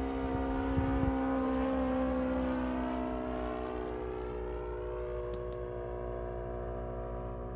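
O.S. GF40 four-stroke gasoline engine of a 1:6 scale RC F8F Bearcat model running steadily in flight, its pitch dipping slightly midway and then rising again.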